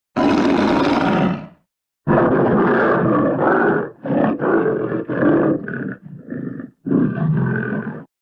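An animal roaring: one long roar, then a run of shorter roars and grunting calls that come in uneven bursts.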